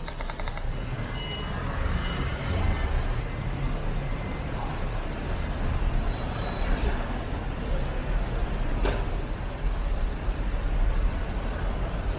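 Diesel minibus engine idling at the kerb with a steady low rumble. A short high electronic beep sounds about six seconds in, and a sharp click comes about three seconds later.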